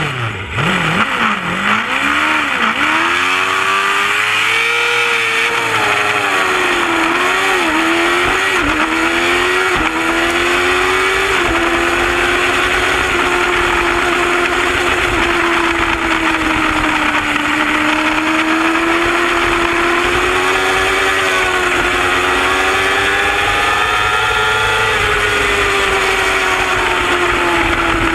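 Racing motorcycle engine heard onboard, accelerating hard from a race start: the revs climb and drop back through a quick run of upshifts in the first dozen seconds, then the engine holds at high revs with slow rises and dips. A steady rush of wind noise runs underneath.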